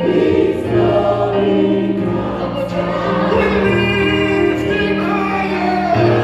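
Live gospel worship song: a praise team of several voices singing together in long held notes, backed by keyboard and drums.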